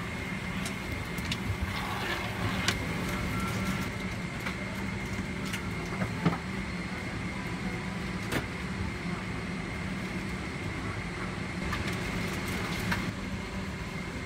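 Steady hum of a Boeing 777-300ER airliner cabin. Over it, plastic-wrapped amenity items crinkle and give a few sharp taps as they are handled and set down on the tray table.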